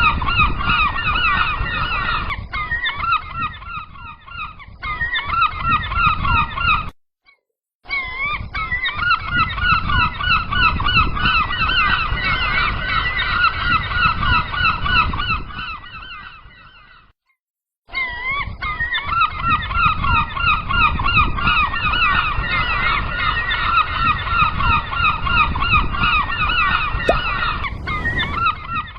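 A flock of gulls calling continuously, many short repeated calls overlapping, over a low rumble. The sound cuts out completely twice, for about a second each time.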